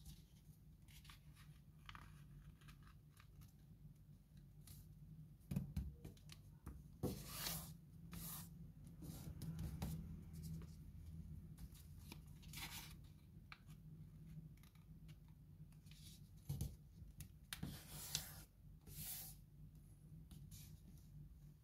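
A sheet of paper being folded and creased by hand: short, irregular rustles and crinkles of the paper, with a handful of louder swishes among them. A faint, steady low hum runs underneath.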